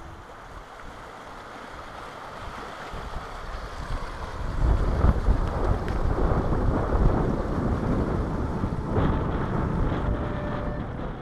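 Steady rush of river rapids, growing louder about four seconds in, with wind buffeting the microphone.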